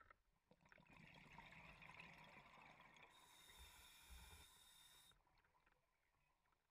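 Faint underwater hiss of a scuba diver breathing through a regulator, lasting about four seconds, with a high whine over its second half and scattered faint clicks.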